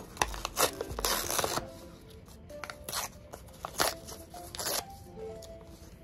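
Paper and stationery being handled in a series of short rustling, scraping bursts, the longest about a second in. Soft background music with a gentle melody plays underneath.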